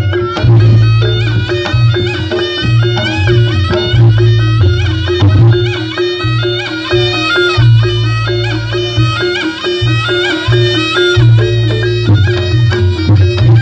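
Reog gamelan music amplified through a loud PA system: a slompret (Javanese shawm) plays a high, wavering, ornamented melody over kendang drums and a steady low held tone, with heavy pulsing bass from the speakers.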